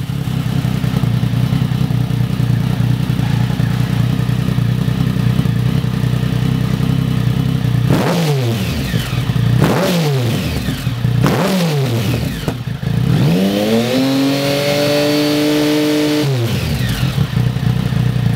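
2013 Triumph Speed Triple's 1050 cc inline three-cylinder engine breathing through a Lextek RP1 slip-on silencer with its baffle removed. It idles steadily for about eight seconds, is blipped three times in quick succession, then is revved up and held for a few seconds before falling back to idle.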